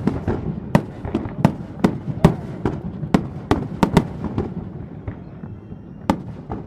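Aerial firework shells bursting in quick, irregular succession, sharp cracks and booms about two to three a second, each trailing off in echo. The barrage thins out about two-thirds of the way through, with one more bang near the end.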